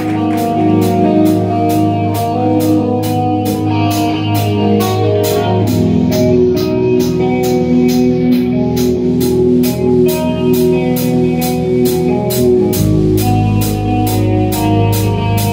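Live rock band playing an instrumental passage: a drum kit keeps a steady beat of about three strokes a second under sustained electric guitar and bass notes. The bass drops to a deeper note near the end.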